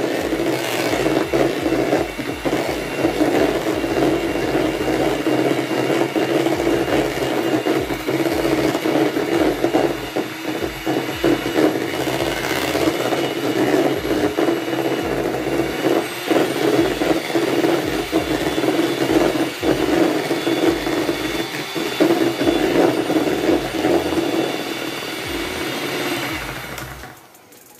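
Electric hand mixer running steadily at one speed, its beaters creaming soft butter in a bowl. The motor stops about a second before the end.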